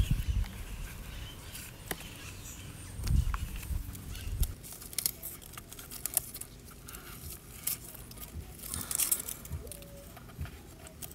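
Dry, dead succulent leaves being plucked and pulled from around echeveria rosettes in a pot: scattered light crackling and rustling, with a few dull handling bumps about three and four seconds in.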